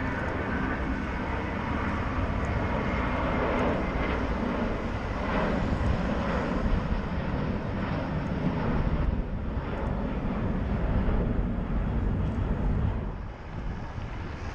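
Jet airliner taking off at a distance: a steady, broad jet roar that eases off near the end.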